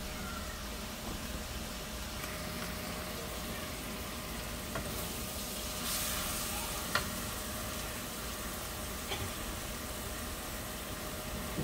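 Sliced onions sizzling in oil in a non-stick frying pan as they soften, stirred with a wooden spatula. The sizzle swells about six seconds in, and the spatula clicks against the pan a few times.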